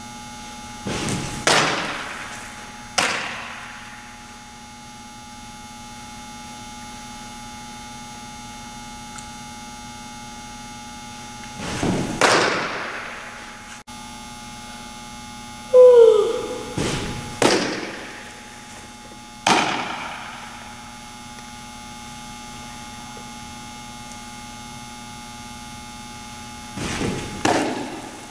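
Fastpitch softball pitches smacking into a catcher's glove: several sharp pops, some in quick pairs, each echoing in a large indoor hall, over a steady electrical hum.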